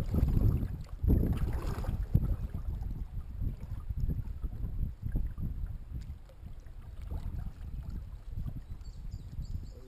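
Double-bladed kayak paddle dipping and pulling through the water in repeated strokes, over a low rumble of water and wind on the hull-mounted microphone. The strokes grow quieter over the last few seconds.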